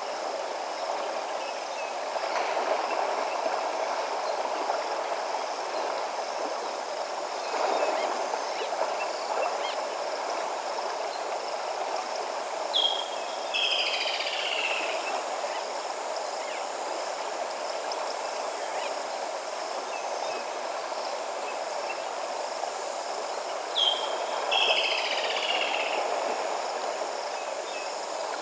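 Steady rush of river water, with a bird calling twice, each time a short high note followed by a quick run of notes falling in pitch. A faint steady high hiss of insects lies underneath.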